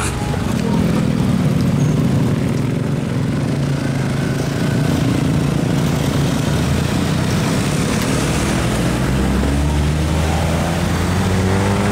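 Several motorcycle engines running together in slow traffic, with engine pitch rising in the last few seconds as the bikes speed up.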